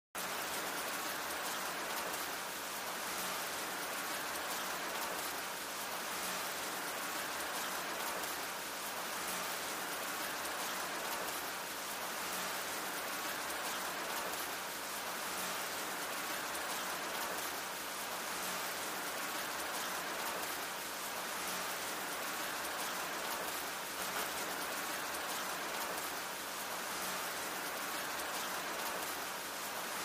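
Steady rain falling: a dense, even hiss of rainfall with fine drop ticks through it, swelling gently about every three seconds.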